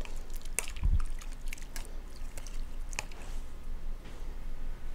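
A spoon stirring diced meat and vegetables in water inside a slow cooker crock: wet squelching and sloshing with light clicks of the spoon against the crock, and a dull bump about a second in.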